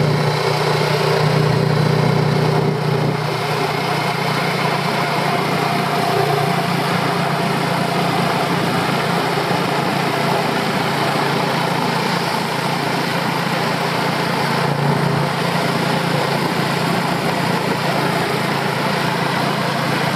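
Small motorbike engine running steadily under way, with road and wind noise.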